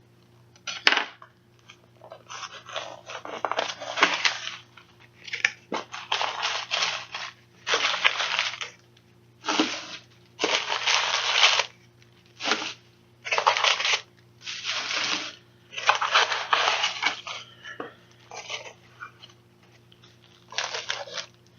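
Paper packaging being torn and crumpled by hand as a gift package is unwrapped, in a series of about a dozen short rips and rustles.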